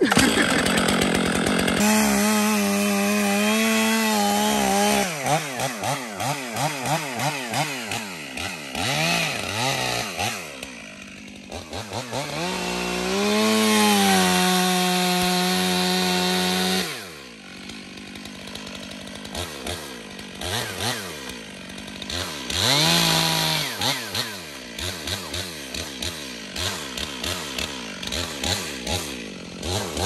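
Chainsaw cutting a deep face notch into a dead snag. It runs at full throttle, drops back and revs up again several times, then falls to a lower idle about halfway through, with short bursts of throttle.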